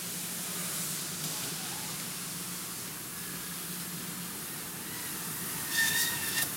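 Escape-Mattress SOLO evacuation mattress dragged across a hospital floor with a patient on it: a steady hiss of the mattress sliding on the floor, with a brief high squeak near the end.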